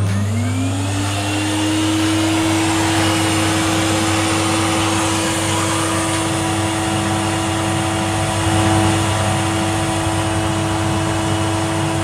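Shop vacuum switched on: its motor whines up to speed in about a second, then runs steadily, drawing air through PVC ducting. Only one of the two vacuums feeding the ducted system is running.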